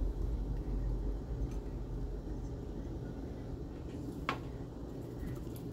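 Low, steady background rumble with a single short click a little over four seconds in.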